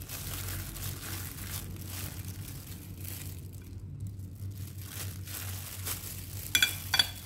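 Thin disposable plastic glove crinkling and rustling as the hand spreads stir-fried vegetables on rice paper, over a low steady hum. A few sharp clicks come near the end.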